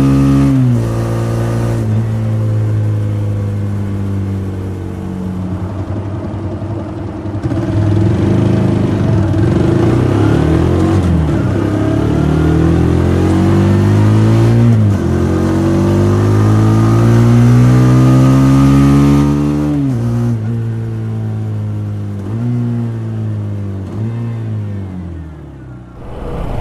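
Exhaust of a TVS Apache RTR 160 4V's single-cylinder engine being revved repeatedly, its pitch climbing steadily and then falling away sharply several times, with a few short throttle blips near the end.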